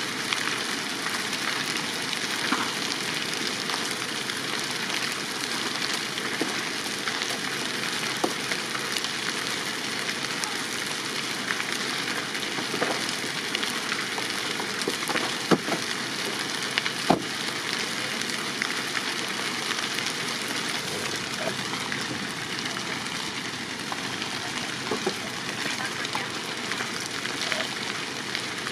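Wood-framed building burning fully: a steady crackling hiss of the fire, with scattered sharp pops of burning timber, the loudest two a little past the middle.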